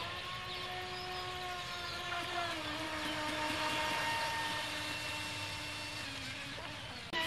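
Super Vee 27 RC boat's brushless electric motor whining at speed on a flat-out speed run, a steady high whine that drops a little in pitch about two and a half seconds in and again near the end.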